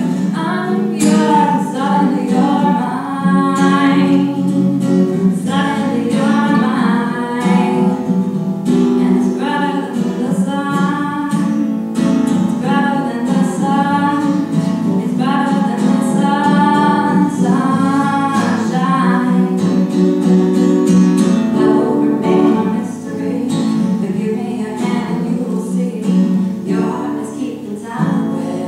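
A woman singing while playing an acoustic guitar, a solo live performance. Her voice drops back for a few seconds about three quarters of the way through while the guitar carries on.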